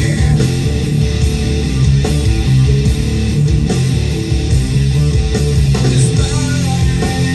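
Rock music with guitar, played from a cassette through a Sony LBT-ZUX10D hi-fi system.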